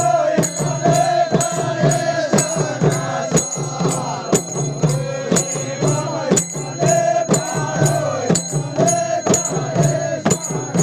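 Khaijadi bhajan: voices chanting a Nepali devotional song together over khaijadi frame drums with jingles, struck in a steady quick beat of about three strokes a second.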